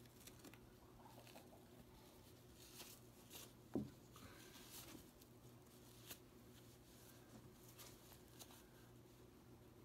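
Near silence: faint rustling and small clicks of hands handling a hen's feathers and a fabric wrap, with one short, louder sound about four seconds in.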